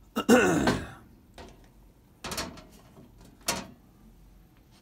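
Metal electrical panel door being handled and closed: a loud creak that falls in pitch just after the start, then two sharp knocks, at about two and three and a half seconds.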